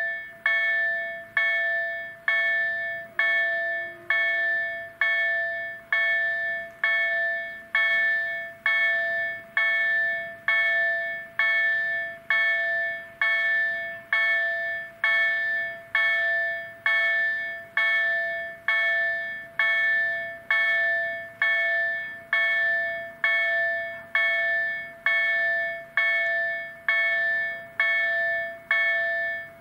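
Level crossing warning bell ringing steadily, a single struck ding a little faster than once a second, each one fading before the next. It is the signal that the crossing is closed with its barriers down for an approaching train.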